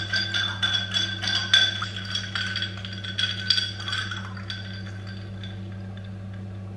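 Ice and a stirrer clinking rapidly against a glass tumbler as a drink is stirred, each clink ringing briefly. The clinking stops about four and a half seconds in, leaving a steady low hum.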